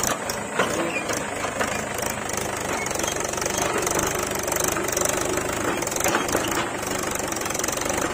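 Mahindra tractor's diesel engine running steadily under load as it pulls a loaded trolley, with a few sharp knocks over it.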